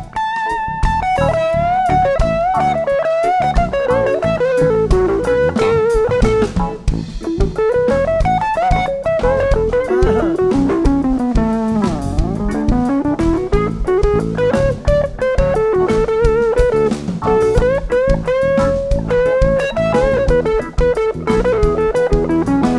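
Electric guitar solo over a reggae groove of drum kit and bass guitar: a single lead line that climbs and falls, with bent and wavering notes.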